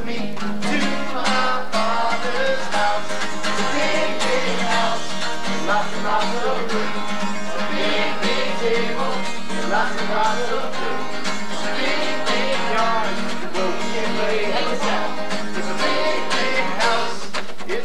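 An acoustic guitar strummed as accompaniment to a group sing-along, with the guitarist leading the singing.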